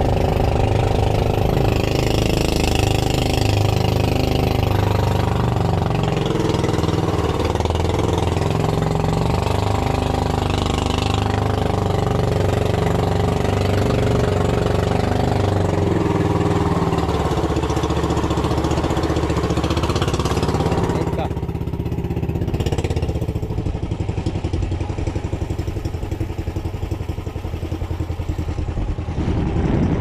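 A small fishing boat's engine running steadily, dropping to a quieter, lower note about two-thirds of the way through.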